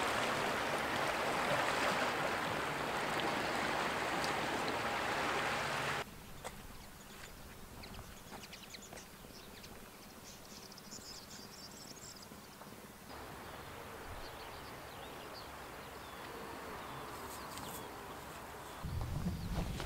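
Sea water washing around shore rocks, a steady rushing hiss, cut off suddenly about six seconds in. Quieter open-air ambience follows with small birds chirping, a steady hiss returns from about thirteen seconds, and footsteps on a path set in near the end.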